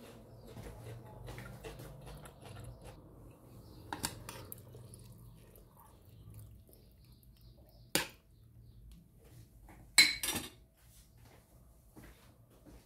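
Ladle stirring mushrooms in a stainless steel pot, knocking against the pot a few times. The loudest knock, about ten seconds in, rings briefly like metal on metal.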